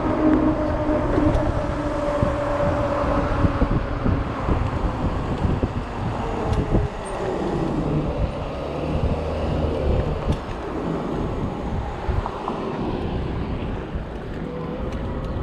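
Ecotric 20-inch 48V fat-tire e-bike riding: a steady hum with wind noise on the microphone, the hum gliding down in pitch about six to eight seconds in as the bike slows.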